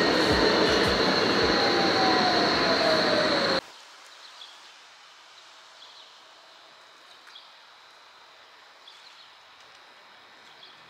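Rumbling ride noise inside a moving vehicle, with a steady high whine and a lower whine falling in pitch. It cuts off abruptly about three and a half seconds in, leaving a quiet background with faint high chirps.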